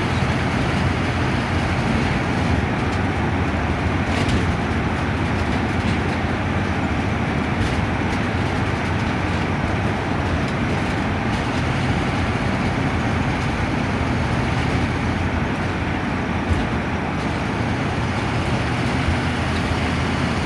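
Transit bus cruising on a highway, heard from inside the cabin: a steady engine drone under continuous road and tyre noise, with one brief click about three-quarters of the way through.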